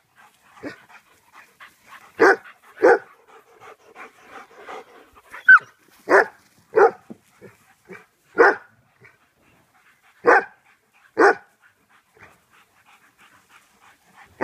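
Dog barking during play in about seven loud single barks, several coming in pairs about half a second apart, with one short higher-pitched yip about five and a half seconds in. Faint panting between the barks.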